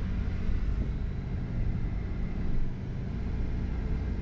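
A car driving at low speed, heard from inside the cabin: a steady low rumble of engine and road noise.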